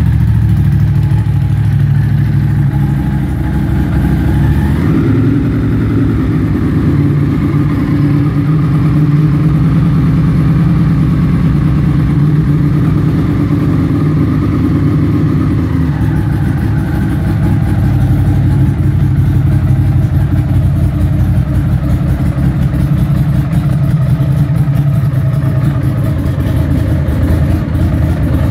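Ducati SuperSport motorcycle engine idling steadily, its pitch stepping up slightly about five seconds in and shifting again around sixteen seconds.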